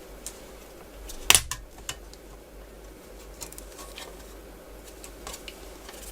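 Small clicks and taps of plastic laptop parts being handled and worked on by hand, with one louder sharp click about a second in.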